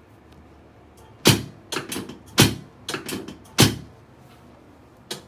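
Chiropractic spinal adjustments on a patient lying face down: three sharp cracks about a second apart, each followed by a few softer clicks, and one more short click near the end.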